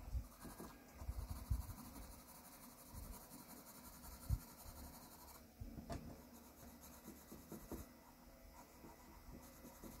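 Graphite pencil hatching on drawing paper: faint, quick, irregular scratching strokes as the dark tones are shaded in, with one slightly louder tap about four seconds in.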